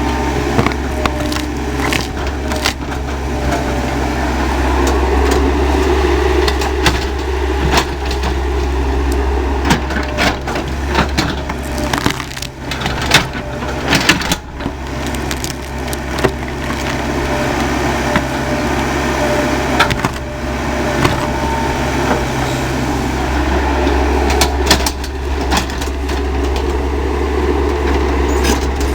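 Excavator's diesel engine running steadily, with repeated sharp cracks and crunches as material splinters and breaks.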